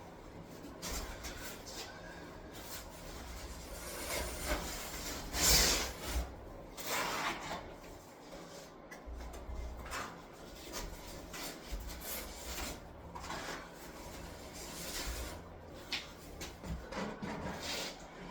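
Trowel scraping and spreading mortar, back-buttering the thin flange of a shower pan: a run of irregular rasping strokes, the loudest a little over five seconds in.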